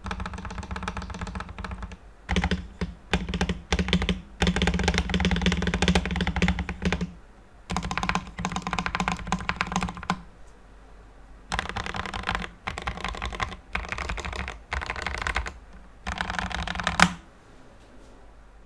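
Typing on a Tester68 (KBM68) mechanical keyboard with lubed Outemu Red linear switches, band-aid modded stabilizers and PBT keycaps. The keystrokes come in fast bursts separated by short pauses. One sharper, louder clack comes near the end, just before the typing stops.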